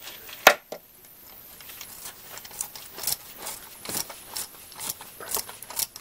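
Hand socket ratchet clicking in short, irregular runs while the last water pump bolt is backed out of the engine block. A single sharp metal clink about half a second in.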